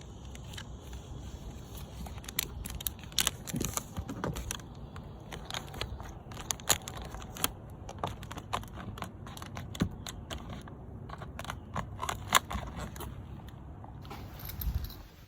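Paper sign and adhesive tape being handled and stuck down: irregular crinkling and crackling, with a steady low rumble underneath.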